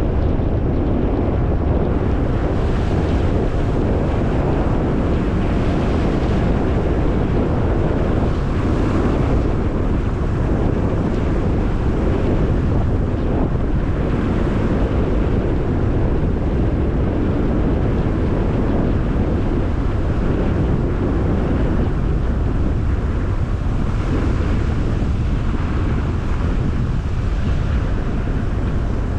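Steady rumble of a car driving: tyre and road noise mixed with wind buffeting the microphone, even and unchanging throughout.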